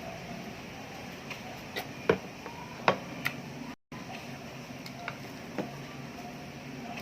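Someone eating: a few sharp clicks and taps, the loudest about two and three seconds in, over a steady background hiss. The sound cuts out for a moment near the middle.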